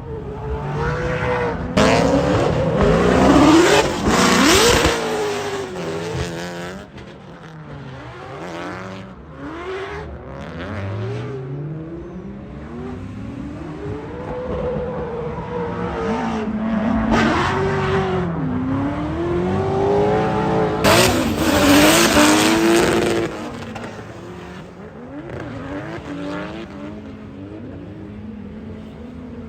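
Drift cars' engines revving up and down hard as they slide, with tire squeal. The loudest stretches come as cars pass about two seconds in and again around twenty-one seconds in.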